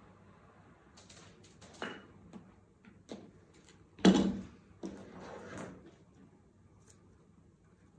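Handling on a cutting table: scattered light clicks and short rustles, one loud knock about four seconds in, then about a second of rustling.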